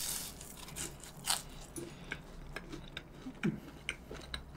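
Close-up chewing of crispy breaded pork cutlet (tonkatsu): a run of small crunches and wet mouth clicks, irregularly spaced about every half second.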